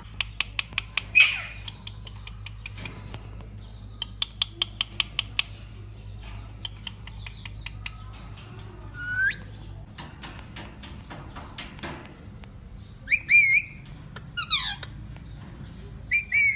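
Lutino Indian ringneck parakeet calling: quick runs of short, rapid chirps, then several loud, wavering squawks in the last few seconds.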